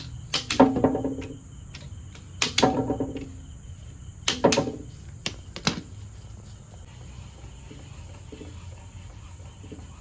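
Click-type torque wrench tightening connecting rod cap bolts to 20 lb-ft: three sharp metallic clicks that ring briefly, about two seconds apart, followed by two lighter clicks.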